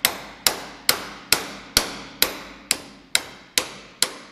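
Hammer striking a 1 1/8 inch socket used as a seal driver, tapping an old, worn oil seal out of a snowmobile engine's backing plate: a steady run of about ten sharp knocks, roughly two a second, each with a short ring.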